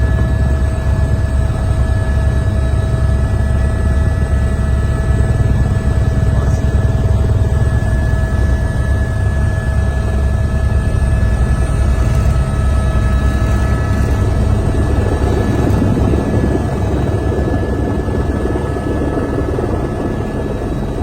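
Helicopter in flight: the steady, fast beat of the rotor with a constant turbine whine above it, easing off slightly near the end.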